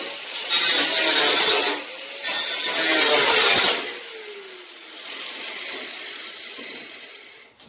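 Handheld power tool worked against the metal exhaust pipe in two loud bursts of about a second and a half each, then spinning down with a falling whine and running on more quietly before fading out.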